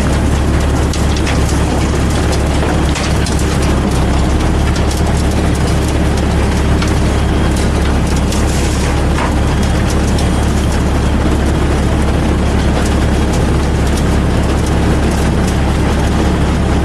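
Heavy diesel machinery of an asphalt milling job running steadily: a constant low engine drone under a dense rushing noise, with scattered clicks and rattles.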